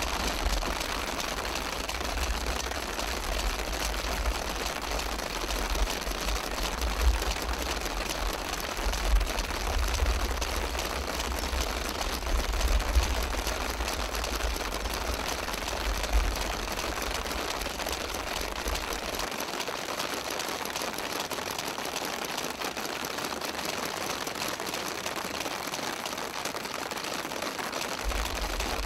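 Many paintball markers firing at once in a fast, continuous rattle of pops. A low rumble underneath drops away about two-thirds of the way through.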